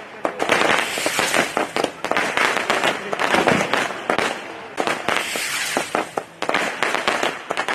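Fireworks going off: a dense, irregular run of sharp cracks and pops, many a second and overlapping.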